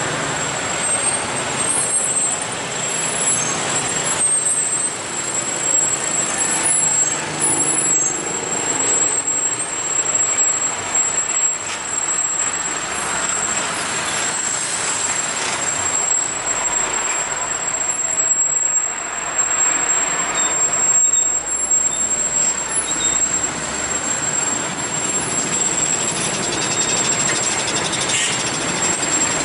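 Heavy road traffic passing close by: a diesel box truck, motorcycles and a coach bus with engines running, a steady mix of engine and tyre noise.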